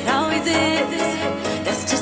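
Background music: a pop track with a steady beat.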